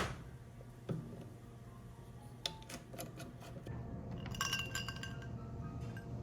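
Tableware clinking on a table: a sharp knock at the start and another about a second in, a few light clicks, then a cluster of bright, ringing glassy clinks about four to five seconds in.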